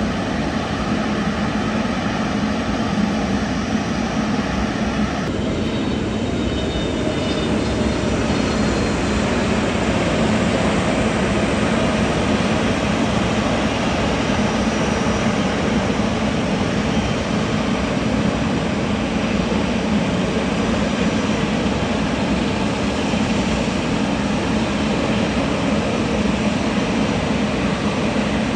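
Jet airliner engines running with steady, continuous noise. About five seconds in, the sound cuts to a second airliner, an Airbus A320neo with CFM LEAP-1A turbofans, whose engine noise carries on steadily.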